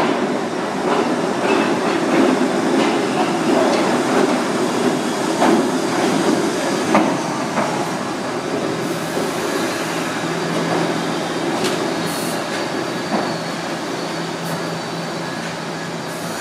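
R68 subway train arriving at an underground station and slowing along the platform: a steady rumble with short wheel clicks over the rail joints. In the second half it eases into a steady hum with a few brief air hisses.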